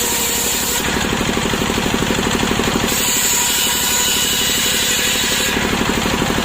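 Chainsaw running steadily with an even, rapid engine pulse while ripping freshly felled, still-wet breadfruit wood lengthwise; a higher whine comes and goes as the cut goes on.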